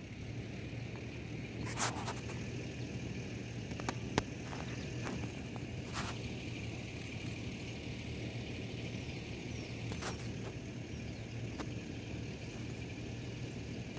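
A vehicle engine idling steadily, with several sharp clicks scattered through.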